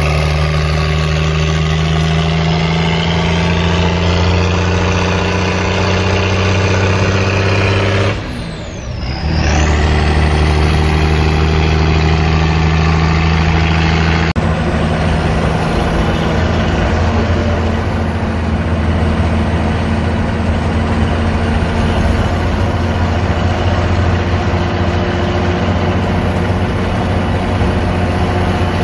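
REO M-series 2½-ton 6x6 truck's diesel engine running steadily under load while driving, heard from the cab. About eight seconds in the engine sound briefly drops off, then picks up again.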